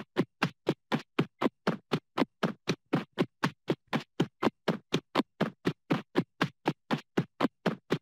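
Cartoon transition sound effect: a short sweep that drops in pitch, repeated evenly and rapidly, about five times a second.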